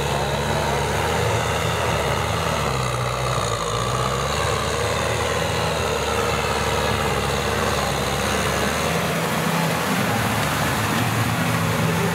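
Kubota M6040SU tractor's diesel engine running steadily as the tractor drives through deep paddy mud. Its engine note shifts about nine seconds in.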